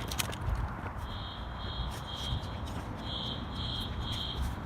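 Building fire alarm sounding the temporal-three evacuation pattern: two sets of three short high-pitched beeps about half a second apart, with a pause between the sets, over a low background rumble.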